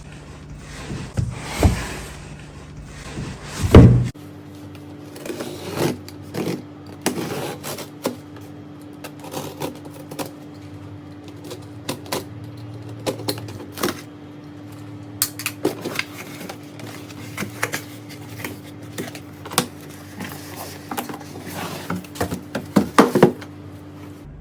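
A cardboard product box being handled: scattered taps, knocks and scrapes, with a loud thump about four seconds in and a quick run of knocks near the end. A faint steady hum sits underneath from about four seconds on.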